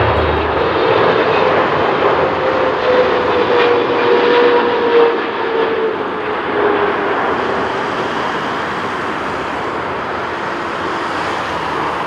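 Boeing 777-300ER's twin GE90-115B turbofans on final approach: a steady jet roar with a faint whine that slides slightly lower as the airliner passes, the roar easing a little in the second half.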